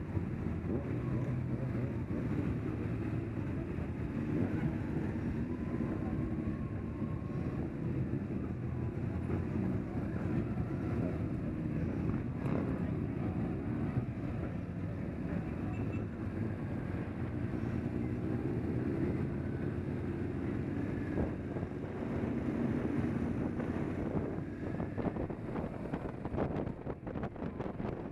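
Motorcycle engines running at low road speed as several bikes ride slowly in a line, the recording bike's own engine closest. Near the end wind starts buffeting the microphone as the ride picks up pace.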